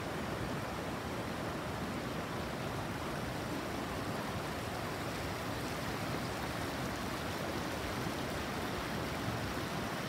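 Clear stream water flowing between stones, a steady, even rushing.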